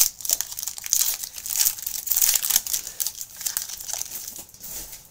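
Plastic wrapper of a trading card pack being torn open and crinkled by hand, a dense, irregular crackling that dies away near the end.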